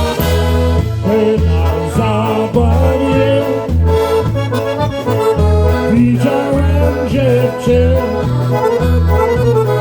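Polka band playing: an accordion carries the melody over a bass line that pulses about twice a second.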